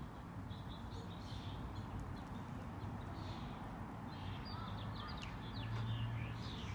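Small birds chirping repeatedly over a steady low hum that swells slightly near the end.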